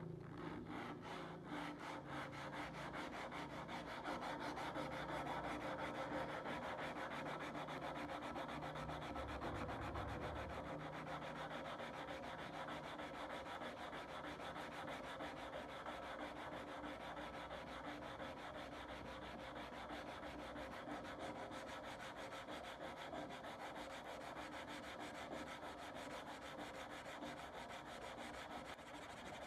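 Sandpaper rubbed by hand over a steel knife blade in rapid back-and-forth strokes, sanding off rust.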